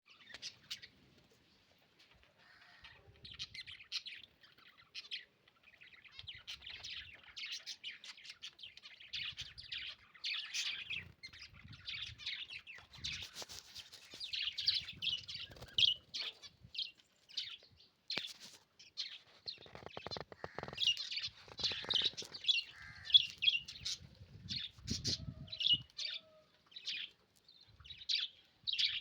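Pet lovebirds chirping and chattering in quick, shrill runs of short calls, with a few low thuds in the second half.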